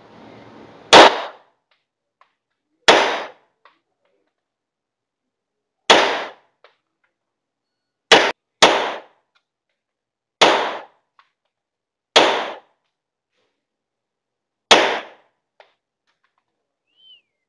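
HS-9 9mm pistol firing eight shots, mostly two to three seconds apart, with the fifth and sixth fired as a quick pair about half a second apart. Each sharp shot is followed by a short echo tail.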